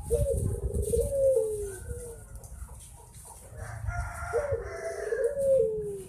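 Ringneck dove (burung puter) cooing: two phrases of low coos, each starting with a short rise and then stepping downward, one at the start and another about four and a half seconds in.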